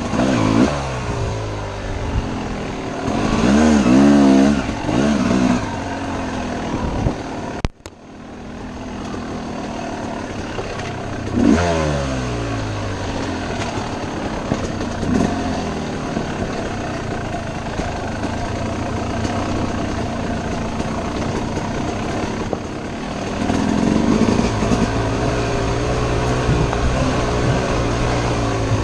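Yamaha YZ250 two-stroke dirt bike engine being ridden off-road, revving up and falling back again and again with the throttle. The sound cuts out for a moment about eight seconds in.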